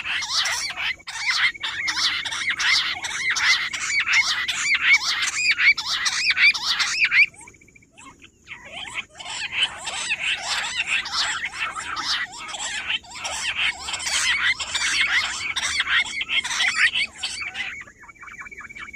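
Rock bush quails calling: a dense, rapid chatter of harsh notes. It breaks off about seven seconds in, starts again a second and a half later, and stops near the end, where a thin, steady, high trill carries on.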